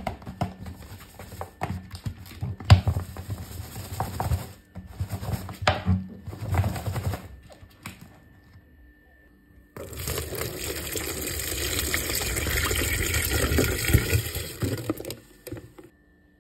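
A large plastic water bottle holding sugar and lemon pulp is handled and shaken: the plastic crackles, with irregular thumps and knocks. About ten seconds in, water pours steadily into it for about six seconds, then stops.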